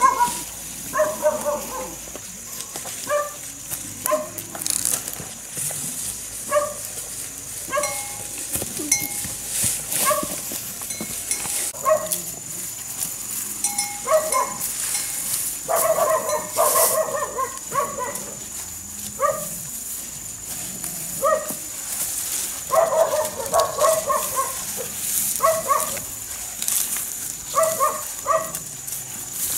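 An animal giving repeated short high-pitched calls, sometimes singly, sometimes in pairs or quick runs of several.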